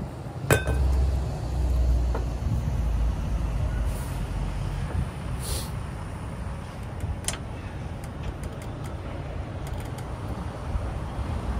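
Steady low vehicle rumble, with a sharp metallic clink about half a second in, two short air hisses near the middle and a light click later.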